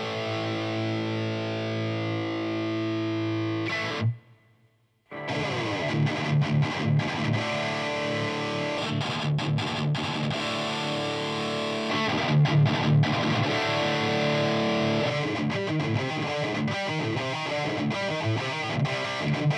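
Distorted electric guitar played through a Laney guitar cabinet and recorded by microphones on the cab. A held chord cuts off about four seconds in, and after a second's pause chugging riffs start up. The sound is first the Reslosound ribbon microphone mixed with a Sennheiser 609, then the 609 alone, and near the end the re-ribboned Reslosound alone.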